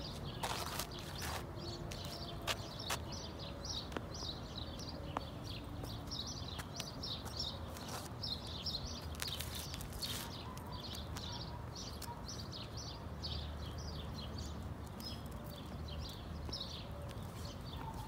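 Flat shoes dragged and scuffed along a concrete sidewalk: gritty scraping of the soles on the pavement with irregular small clicks and taps.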